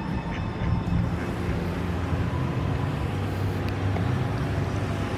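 Steady low rumble of motor traffic, with an engine hum underneath.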